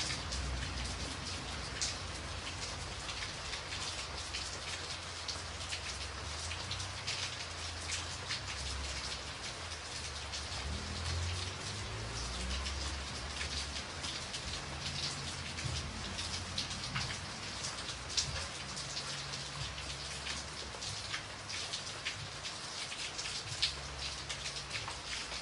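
Steady rain falling, with many individual drops pattering sharply onto a surface over an even hiss.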